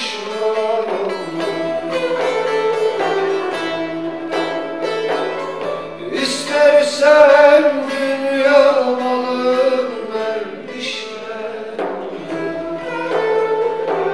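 Male voice singing a Turkish folk song over his own plucked bağlama (saz) accompaniment, with the sung line swelling loudest in the middle.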